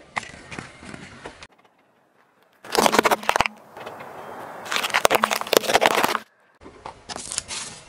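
Car tyre rolling onto a pile of fresh radishes and crushing them: dense crunching and cracking in two loud spells, one about three seconds in and a longer one around five to six seconds in. Before that, fainter crackling and then a short silence.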